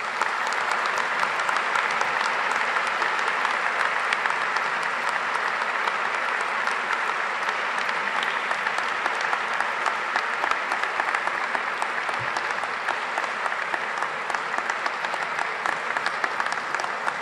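Large audience applauding: many hands clapping in a dense, steady patter that holds at an even level throughout.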